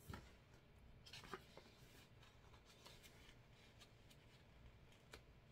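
Near silence, with faint rustles and light taps of a small cardboard booklet being handled and turned over. The loudest is a tap a little over a second in.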